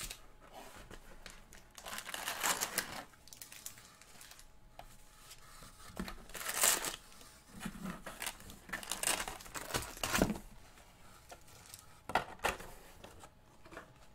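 Foil-wrapped Topps Chrome card packs crinkling and the cardboard box rustling as the box is opened and the packs are pulled out, in several short bursts of rustling.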